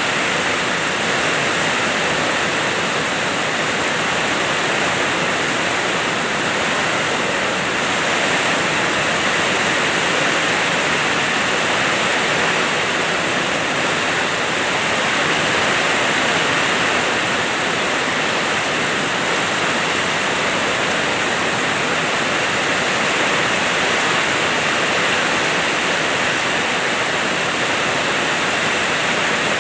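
Heavy rain falling steadily, an even, unbroken hiss that holds at the same level throughout.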